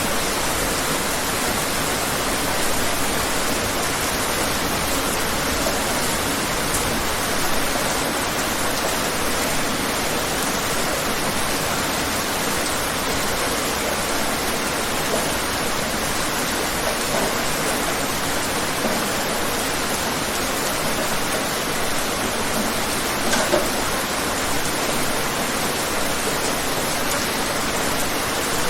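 Steady rain falling outdoors, an even hiss of many drops, with a few slightly louder spatters here and there.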